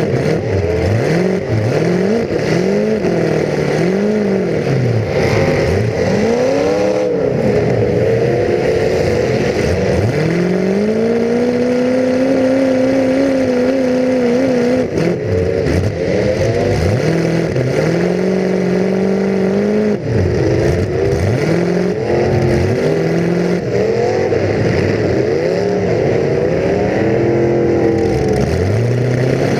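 Full-size demolition derby car's engine heard from inside the car, revving up and dropping back over and over as it accelerates and backs off. About ten seconds in it is held at high revs for a few seconds before falling away, and later it runs at a few steady steps of speed before the quick up-and-down revving returns.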